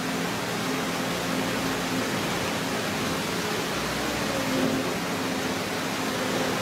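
Steady rushing noise, with the low hum of a walking (spider) excavator's engine running underneath and rising slightly in pitch now and then.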